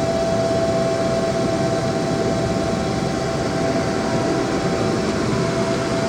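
Haas ST-15 CNC lathe running, a steady whine over an even mechanical hum.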